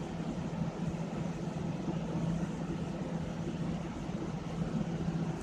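A steady low hum with an even background hiss, unchanging throughout, from some running motor or machinery.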